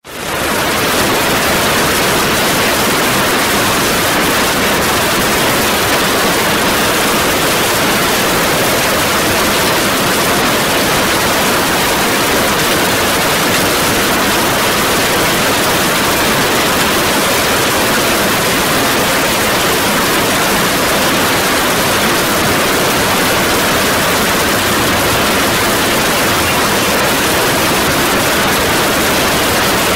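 Heavy hail and rain coming down hard in a dense, steady hiss of countless impacts. It rises in over the first second, then holds unchanged.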